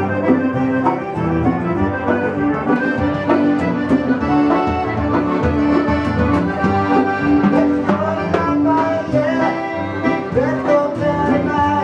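Live band music led by a button accordion playing a tune of held chords and melody, with fiddle and acoustic guitar accompanying.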